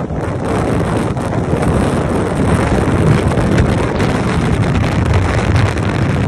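Steady wind buffeting and rushing over the microphone on a motorcycle moving at speed, with the ride's engine and road noise mixed in underneath.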